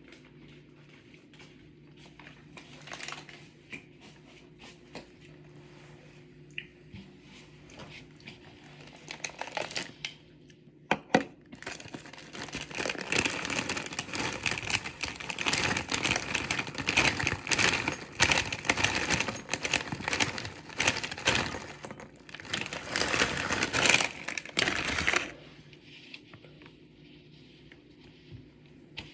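Plastic packaging being handled, crinkling and rustling with sharp crackles, loudest and most continuous from about twelve to twenty-five seconds in.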